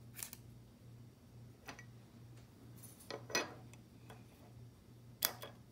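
Baseball cards being handled and slid into plastic card sleeves: a few short scrapes and taps, the loudest about three seconds in and again a little after five seconds. Under them is a faint low hum that pulses about twice a second.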